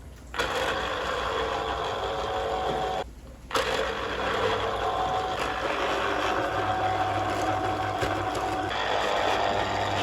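Electric blender motor running as it purées frozen red berries with orange juice; it starts about half a second in, stops briefly around three seconds in, then runs on steadily.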